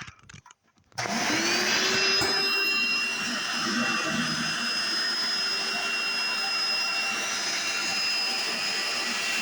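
Hoover Encore Supreme direct-air upright vacuum switched on about a second in. Its motor spins up with a rising whine, then runs steadily with a high whistle. There is a brief knock shortly after it starts.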